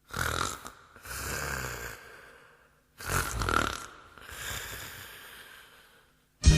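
A person snoring loudly: two snores about three seconds apart, each a short, rough, loud breath followed by a longer, softer one. Music starts just before the end.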